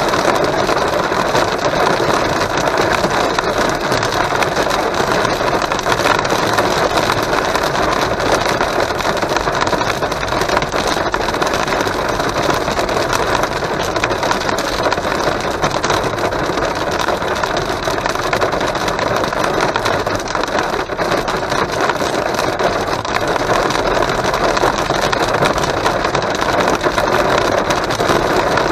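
Heavy rain and hail drumming on a car's roof and windscreen, heard from inside the cabin while driving: a loud, dense, unbroken din peppered with fine sharp ticks of impacts.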